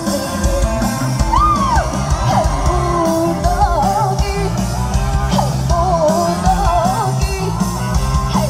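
Live rock band playing loudly through a PA system: a sung vocal melody over electric bass guitar, drums and keyboard.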